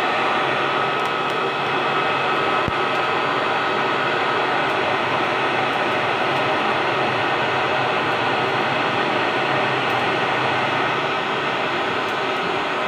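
Forge blower running steadily, a constant rush of air with a thin steady whine, blowing into a charcoal forge fire while a machete blade heats in the coals.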